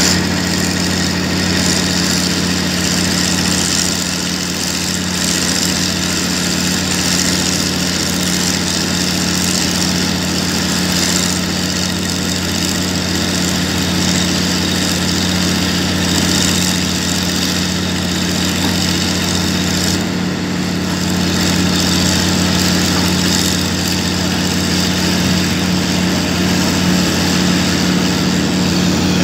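Diesel engines of hydraulic excavators running steadily close by, with a low steady hum and a hiss over it. The note shifts briefly about twenty seconds in.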